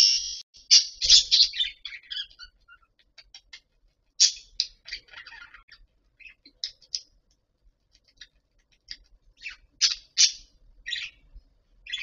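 Budgerigars chirping: short, sharp calls in small irregular clusters, loudest about a second in, about four seconds in and again around ten seconds in.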